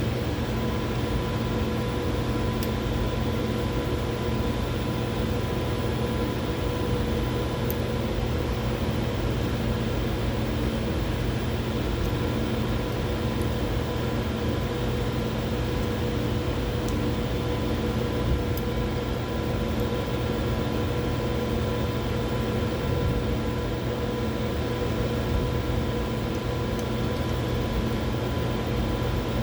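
Steady hum of running laboratory instruments, with a few held tones over a constant noise, and a few faint light clicks.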